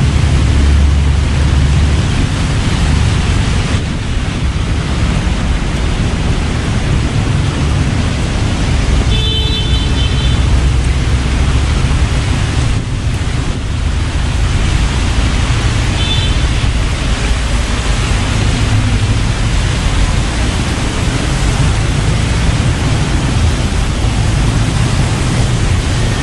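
Heavy rain falling, a steady loud hiss, with a deep rumble underneath. Two brief high tones sound about nine seconds and sixteen seconds in.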